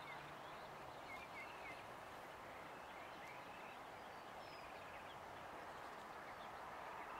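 Faint steady background noise with a few faint, short bird chirps scattered through.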